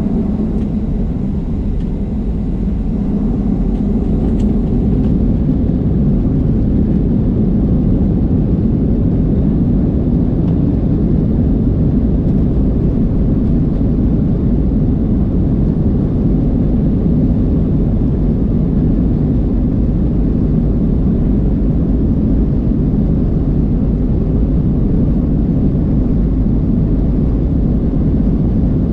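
Boeing 737-700's CFM56-7B jet engines at takeoff power, heard from inside the cabin as a loud, steady, low rumble together with runway noise. It builds over the first few seconds and then holds.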